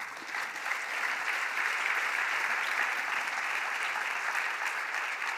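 Audience applause: a large seated crowd clapping, building within the first second and then holding steady.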